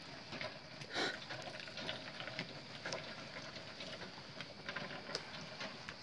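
Horse walking in harness with a light cart on a dirt arena: faint, irregular hoof falls and small knocks, with one louder knock about a second in.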